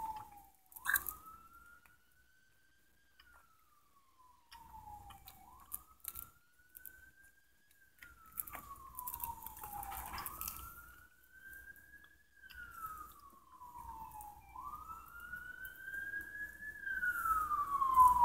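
Emergency-vehicle siren wailing, its pitch sliding slowly up and down about every four to five seconds. A second, higher siren joins in the last few seconds. Light rustling and clicks of handling sound over it.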